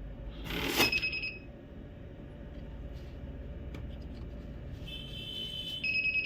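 Money counting machine running with a steady motor hum, a brief rustle of notes, and sharp electronic beeps twice, about a second in and near the end. These are the jam or error alarm, which the uploader puts down to dust on the machine's sensors.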